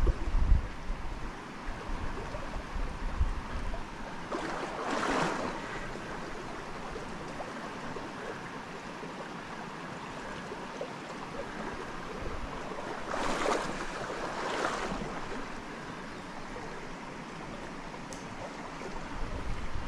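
Small creek running steadily, with two louder swells of rushing noise, about five and thirteen seconds in.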